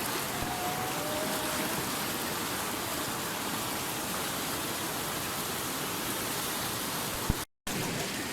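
Steady rush of a waterfall's falling water, broken by a split-second dropout about seven and a half seconds in.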